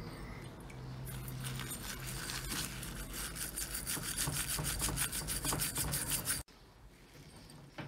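Steel wool scrubbing the inside of a bronze mortar cup wet with vinegar: a rapid, rasping rub of many quick strokes, cleaning off the tarnish. It stops abruptly about six and a half seconds in.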